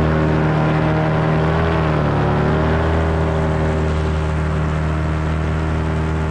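Paramotor engine and propeller running steadily in flight, heard from the pilot's harness; its pitch dips briefly about two seconds in and then recovers.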